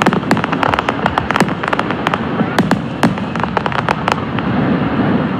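Aerial fireworks bursting overhead: a rapid, irregular run of sharp bangs and crackling, with a few louder reports standing out among them.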